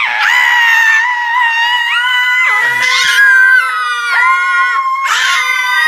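A woman and two children screaming together in excitement: loud, long, high-pitched held screams of several voices at once. They start suddenly and break off and start again a few times.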